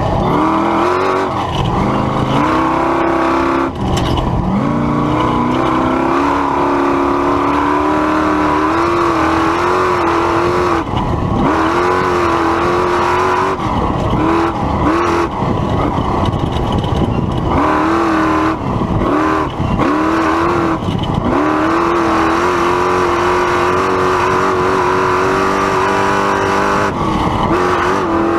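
Ford Ranger off-road race truck's engine running hard at high revs. The pitch holds high and then drops sharply and climbs back again many times, most of the dips coming in the middle stretch, as the throttle comes off and back on.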